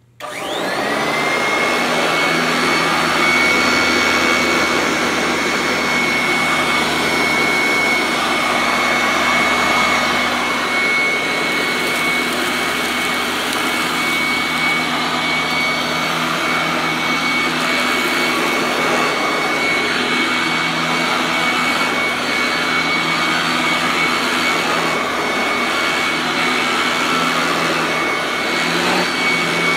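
Royal 18-inch commercial upright vacuum switched on: its motor spins up within about a second to a high, steady, jet-engine-like whine and keeps running as it cleans debris off carpet.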